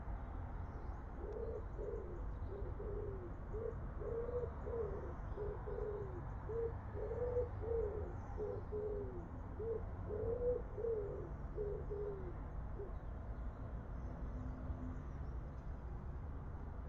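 Pigeon cooing: a long run of short coos that rise and fall in pitch, starting about a second in and stopping a few seconds before the end, over a steady low rumble.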